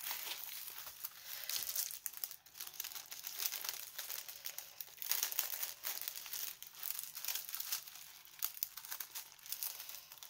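Clear plastic packaging crinkling and rustling in irregular crackles as it is handled and pulled open.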